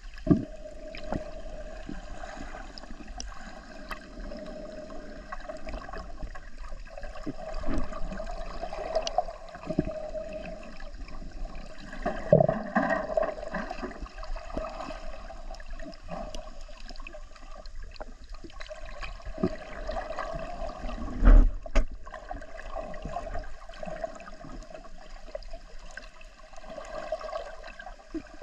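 Water heard from underwater, muffled and gurgling, with scattered clicks and knocks and a few louder thumps, the strongest about twenty-one seconds in.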